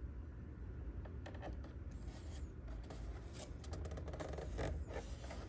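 Vinyl decal being handled and smoothed onto a plastic charger case: a run of scratchy rustles and light clicks, starting about a second in.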